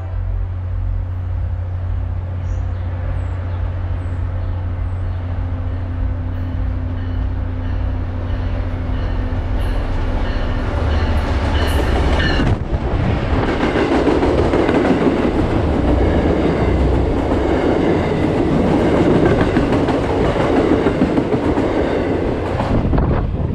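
A train passing on the rails: a steady low drone, then from about halfway a much louder rush and rumble of the train going by, which cuts off abruptly near the end.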